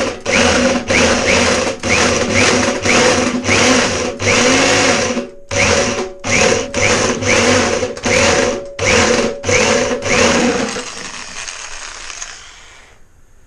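Electric hand drill with a step drill bit cutting into stainless steel sheet in short repeated bursts, each a run of motor whine and grinding; the bit is struggling with the stainless. The bursts die away near the end.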